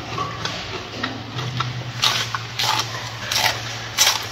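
Gorilla chewing a mouthful of lettuce, crisp wet crunches coming about three every two seconds from about two seconds in, over a steady low hum.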